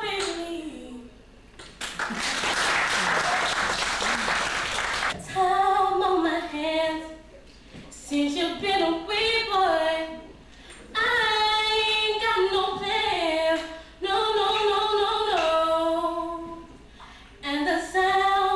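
Young women singing a cappella into a handheld microphone, with held notes that slide between pitches. About two seconds in, a few seconds of applause break in before the unaccompanied singing resumes.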